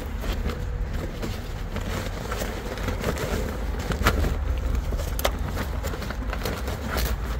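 Spiral notebooks with plastic covers rustling and clacking as they are handled and stacked into a fabric shopping bag, with a few sharper clacks in the second half, over a steady low rumble.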